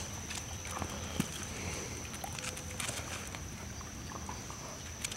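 Pit bulls play-fighting, with light scattered scuffles and paw steps and no loud growls or barks.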